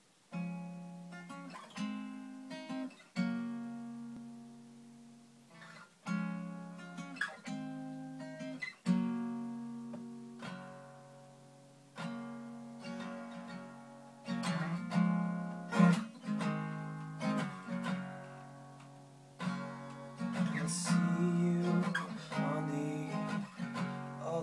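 Acoustic guitar playing a slow intro: chords strummed one at a time and left to ring out, a new chord every second or two. The strumming gets busier in the last few seconds.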